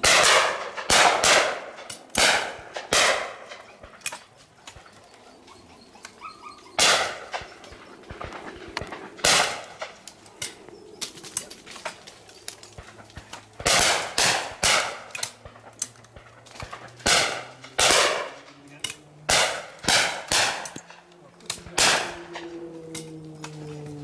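Shotguns firing at driven clay targets: about twenty sharp shots in quick pairs and bursts, some loud and close, others fainter from farther off, with lulls between flushes. Near the end a low droning tone slowly falls in pitch under the shots.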